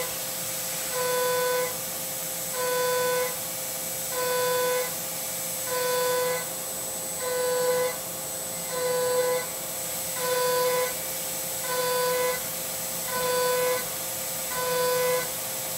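CNC mill cutting aluminium with an end mill under flood coolant. A steady spray hiss runs throughout, and a pitched cutting tone rings out for about half a second roughly every 1.6 seconds as the tool bites into the part on each pass of the toolpath.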